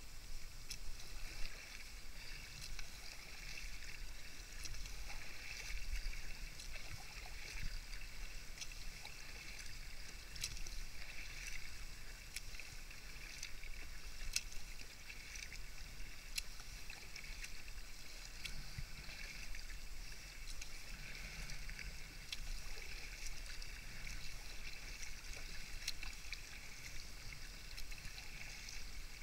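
Kayak paddle strokes on calm sea water: soft splashing and dripping from the paddle blades, with scattered small ticks.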